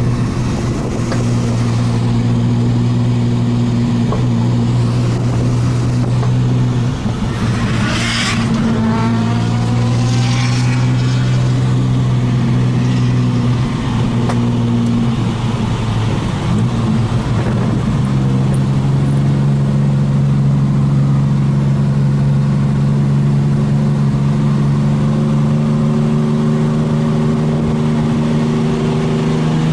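Turbocharged Ecotec V6 engine running steadily at low revs, its pitch stepping slightly a few times. Another engine revs briefly about eight seconds in.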